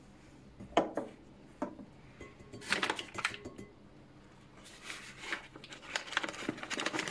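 Hands rubbing flour into margarine and egg in a glass mixing bowl: a crumbly pastry dough rustling and crackling under the fingertips, with a couple of sharp knocks against the glass near the start.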